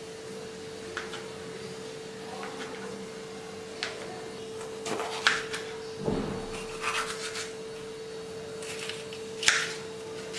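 Kitchen knife cutting paneer and a green capsicum on a plastic cutting board: irregular cuts and taps of the blade on the board, the loudest about five seconds in and again near the end, over a steady hum.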